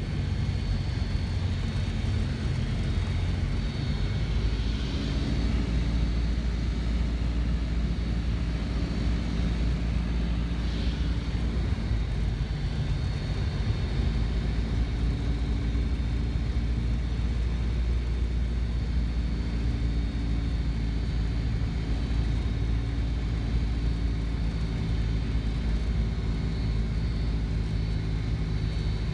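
Mooney M20J's four-cylinder Lycoming engine and propeller droning steadily inside the cabin on the approach to land, with a slight change in tone about halfway through.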